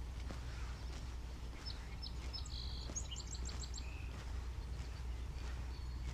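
A small bird singing in high chirps, ending in a quick trill of about five notes around the middle, over regular footsteps about two a second and a low steady rumble.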